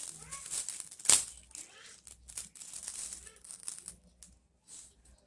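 Metal spoon scraping and clicking against a plastic bowl while stirring ground pork, grated potato and seasonings, with one sharp clink about a second in.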